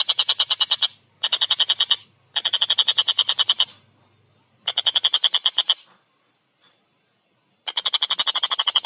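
Tengkek buto kingfisher calling in fast, rattling trills of about ten sharp notes a second, in five bouts with short pauses between them, the last starting near the end.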